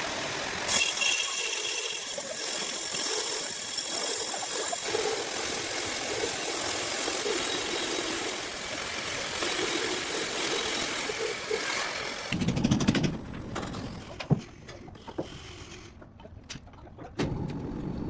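Heavy sawmill machinery running: a loud, steady hiss that stops about twelve seconds in, followed by a low rumble, a sharp knock, and another rumble near the end.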